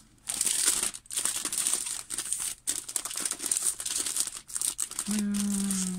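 Cellophane wrapping on a rolled diamond-painting canvas crinkling as it is handled. A short, steady, level hum comes in about five seconds in.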